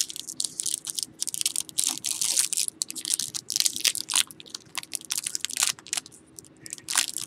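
Crinkling and tearing of a foil trading-card pack wrapper as it is opened and handled, in quick irregular crackles.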